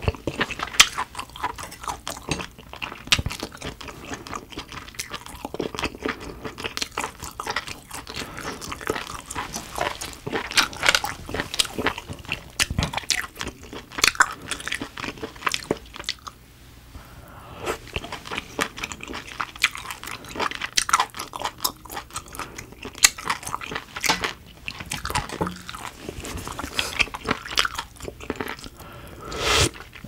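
Close-miked chewing and wet mouth sounds of a person eating steamed shellfish, made up of many small irregular clicks and smacks, with a brief lull about halfway.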